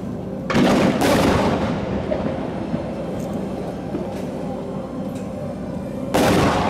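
Aerial fireworks shells bursting overhead: two loud booms about half a second apart near the start, each rumbling away, a few faint crackles, then another loud boom near the end.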